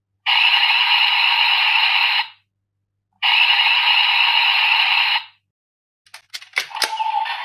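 Electronic sound effects from a GUTS Hyper Key toy (Ultraman Decker Flash Type) played through its small speaker: two hissing, rushing bursts of about two seconds each, a second apart. These are followed by a quick run of clicks and crackles and a short tone near the end.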